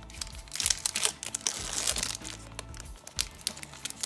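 Foil wrapper of a Pokémon trading-card booster pack crinkling and tearing as it is ripped open by hand, in a run of quick rustles and crackles, over background music.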